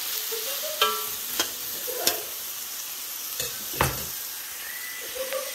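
Chicken strips and onion sizzling in a metal wok while a metal spatula stirs them, clanking and scraping against the pan several times over a steady hiss of frying.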